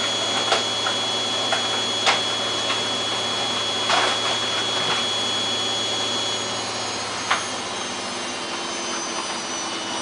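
Samsung WF8804RPA front-loading washing machine in its final spin: a steady high motor whine over a low hum, with a few sharp clicks from the drum. About six and a half seconds in the whine stops and the pitch starts to fall as the drum begins to slow down at the end of the spin.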